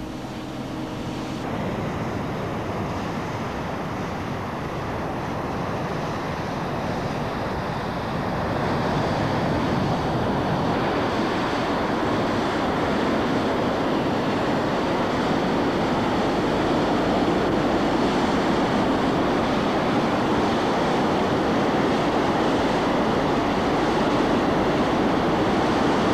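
Steady rushing noise of high-pressure gas escaping, growing louder about eight seconds in.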